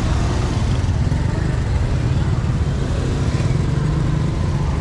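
Busy market-street ambience: a motor vehicle engine running steadily close by, over faint background voices.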